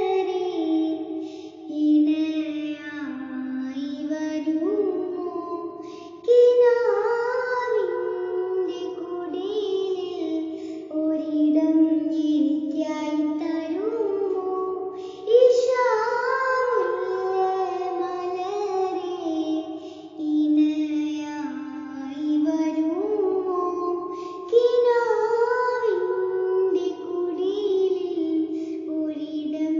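A young girl singing without accompaniment, long held notes stepping up and down in pitch.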